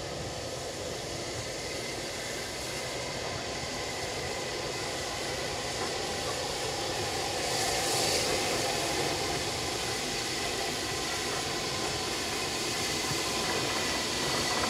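SR Schools Class 4-4-0 steam locomotive No. 925 'Cheltenham', double-heading with a second engine, pulling slowly away with a steady hiss of steam that grows louder as it comes closer. A louder burst of hiss comes about eight seconds in, as steam blows from around the cylinders.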